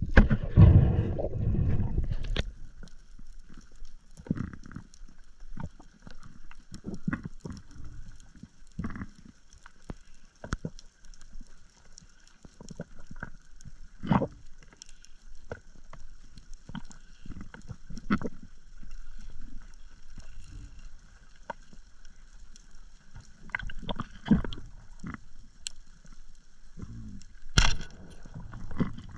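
Underwater sound picked up by a submerged camera: a loud muffled rush of moving water for the first couple of seconds, then a quieter stretch of scattered sharp clicks and soft low knocks over a faint steady high whine.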